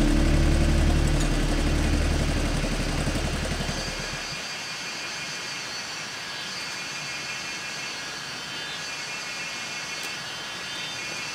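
A low steady drone fades away over the first four seconds, leaving a steady, even hiss of outdoor ambience.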